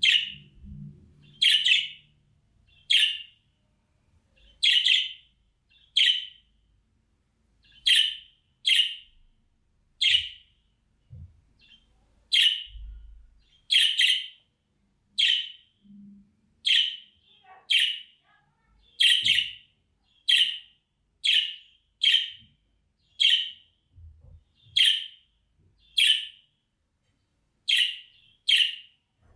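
Budgerigar giving repeated short contact calls: brief sharp chirps, about one a second, some coming in quick pairs.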